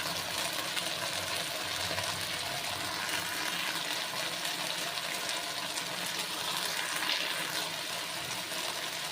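Spice paste and onions sizzling steadily in a little hot oil in a kadai as the masala is fried down.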